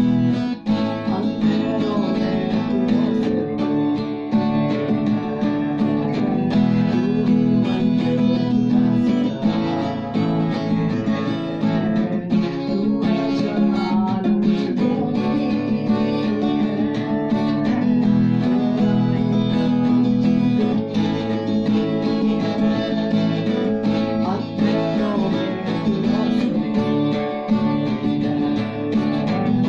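A man singing in Hindi while strumming chords on a Givson acoustic guitar.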